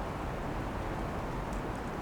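Blizzard wind blowing steadily, a low, even rushing noise with wind buffeting the microphone.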